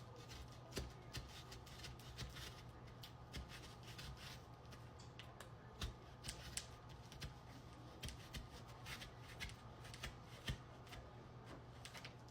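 Snap-off utility knife blade cutting through foam board, a run of faint, irregular short scratching and crackling strokes.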